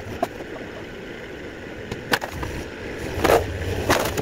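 Bobcat mini excavator running under load as its bucket smashes through a wooden garage front, with several sharp cracks of splintering boards, the loudest about three seconds in.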